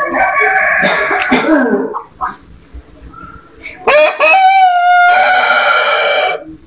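A rooster crows once, starting about four seconds in: one long call that rises and then holds steady for about two seconds before cutting off. In the first two seconds there is another loud, rougher burst of pitched sound.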